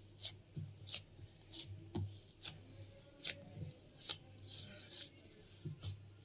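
Boiled potatoes being mashed in a bowl: a series of short, sharp squishing and tapping strokes, about one to two a second, as the tool presses the potato against the bowl to work out the lumps.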